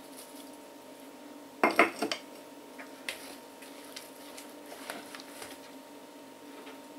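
A spoon and a spatula knocking and scraping against a plastic bowl while grated zucchini batter is stirred. A couple of louder knocks come about two seconds in, then lighter taps, over a faint steady hum.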